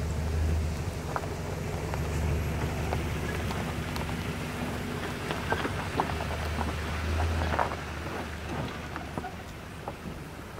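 A four-wheel drive's engine running at low speed as it rolls slowly along a dirt track, with small crackles from its tyres on the loose dirt. The engine fades near the end.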